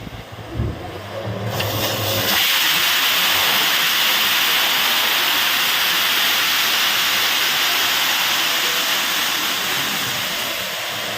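Borewell drilling rig blowing out the bore: a loud, steady hiss of air and water rushing out of the well. It builds up about two seconds in over a low engine hum and eases slightly near the end.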